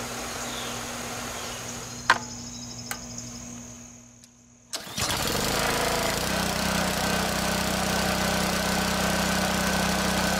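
Water hissing from a pressure washer wand while the engine is off, fading out. Just under five seconds in, the washer's small gasoline engine is pull-started, catches at once and runs steadily.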